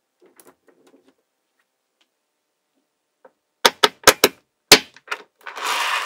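Small magnetic balls clicking as they snap together: a few faint ticks at first, then about six sharp clicks in quick succession a little past halfway, followed by a short clattering rattle of many balls near the end.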